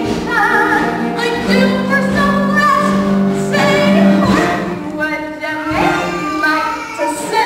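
Voices singing a show tune from a stage musical over accompaniment, with long held notes that waver in pitch.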